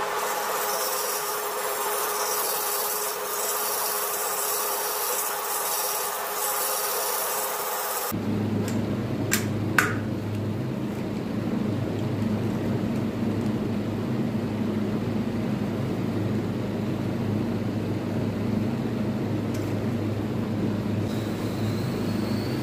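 Wood lathe spinning a turned wooden vase while a hand works inside the hollow form. About 8 seconds in this gives way to a steady low workshop machine hum, broken by two sharp clicks about a second later.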